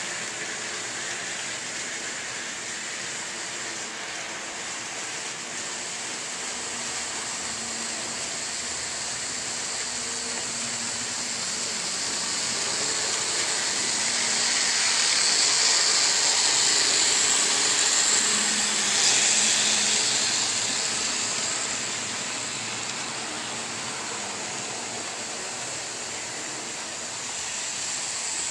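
N-scale model trains running on the track: a steady, high whir of small motors and wheels on rails that swells as a train passes close by about halfway through, then fades again.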